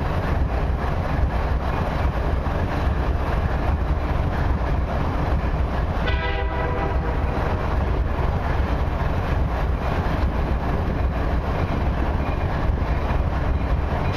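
Freight train led by CN EMD SD75I diesel locomotives passing close by with a loud, steady rumble of engines and rolling wheels. A brief tone sounds about six seconds in.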